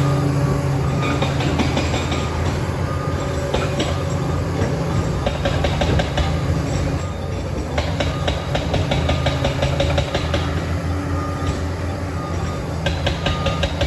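Liebherr 746 crawler dozer's diesel engine running steadily, with several spells of rapid metallic clanking and squeaking from its steel tracks.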